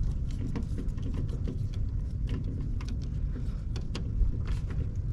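Scattered light clicks and scrapes of a screwdriver and pliers working a wire into the terminal of a new double-pole 20-amp circuit breaker, over a steady low background rumble.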